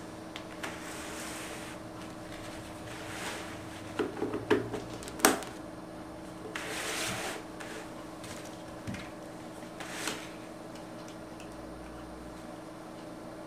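Handling noises of a boxy plating control unit being picked up, turned and set down on a table while a power cable is plugged into its back: scrapes and rustles of the case and cable, and a cluster of knocks and clicks about four to five seconds in, the sharpest about five seconds in.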